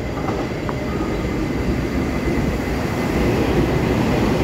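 A Taiwan Railway EMU3000 electric multiple unit running in alongside the platform, its rolling and running noise growing steadily louder as it approaches.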